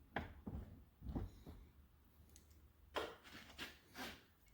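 A few faint, scattered clicks and light knocks, like tools and metal parts being handled.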